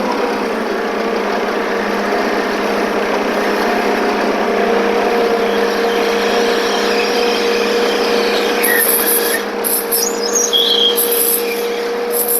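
Forklift engine running steadily with a held whine, its pitch easing down slightly just after the start. Short hissing bursts about nine to eleven seconds in.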